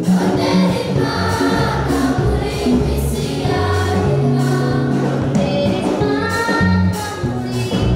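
Children's choir singing a Kirundi gospel song, several voices in parts holding sustained notes.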